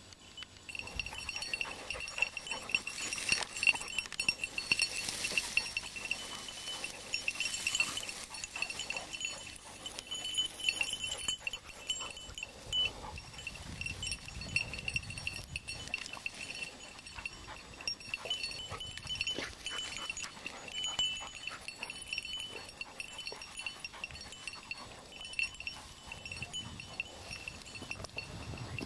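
A small bell jingles almost without a break as a hunting dog moves through the cover. Irregular rustling and crackling of dry grass and brush runs alongside it.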